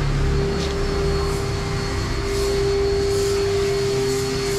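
Steady machine hum with a constant mid-pitched whine and a low rumble underneath.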